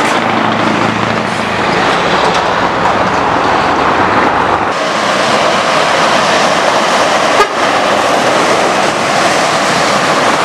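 Scania R-series V8 trucks with loud open exhaust pipes driving past at close range, a dense, loud engine and exhaust sound. The sound changes abruptly about halfway through as one passing truck gives way to another.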